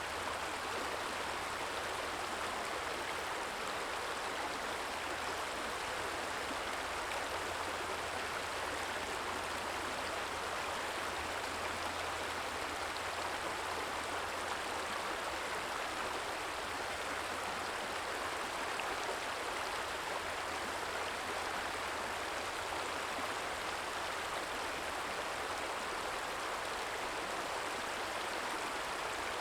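A stream trickling and flowing in a steady, even rush of water, with a faint low steady hum underneath.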